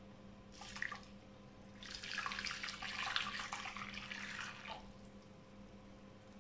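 Hot water poured from a stainless steel saucepan into a glass baking dish, a steady splashing pour lasting about three seconds, starting about two seconds in.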